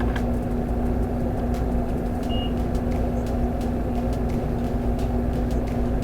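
Steady background hum holding one constant low tone, with a few faint light clicks.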